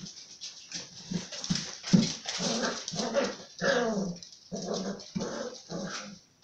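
German shorthaired pointer puppies vocalizing at play: a quick string of short yips, about two a second, with one longer wavering whine about midway.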